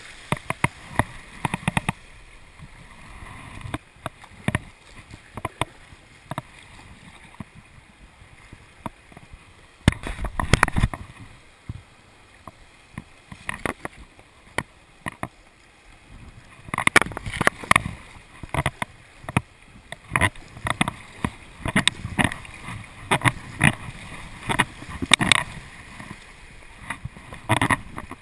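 Kayak paddle strokes splashing and river water rushing past a whitewater kayak's hull, picked up close by a deck-mounted camera. The strokes come only now and then at first, with one heavy splash about ten seconds in, then come quickly and steadily through the second half.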